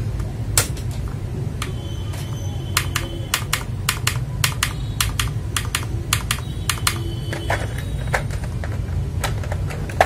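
Keys on a GamaKay LK67 mechanical keyboard with Gateron milky yellow switches clacking in an irregular series of sharp clicks, over a steady low hum.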